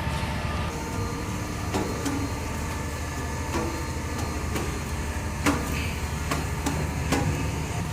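A steady low engine rumble, with a series of sharp knocks and clicks at irregular intervals.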